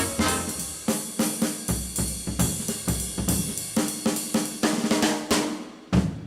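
Jazz drum kit solo: snare, tom-toms, bass drum and cymbals struck in quick, uneven runs of strokes, with a heavy hit near the end that rings out.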